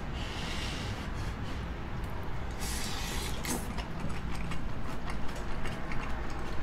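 Chewing a mouthful of fusilli cream pasta with crisp napa cabbage, with irregular crunching and a few faint clicks.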